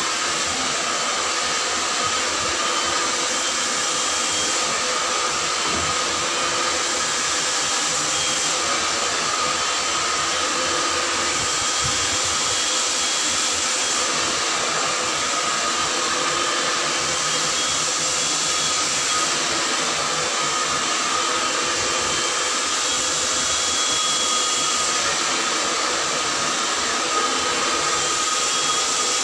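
Handheld hair dryer running steadily on a client's hair: an even rush of air with a steady whine, switched on just as it begins.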